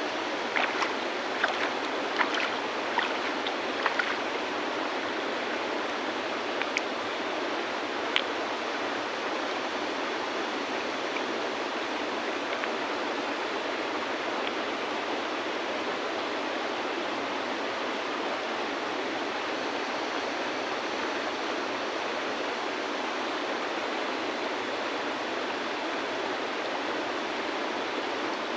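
River water flowing steadily, with about seven sharp clicks of river stones knocking together in the first eight seconds.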